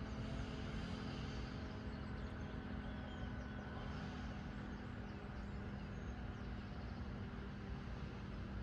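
Quiet outdoor ambience: a steady low hum over a faint, even rumble, with a few faint high chirps.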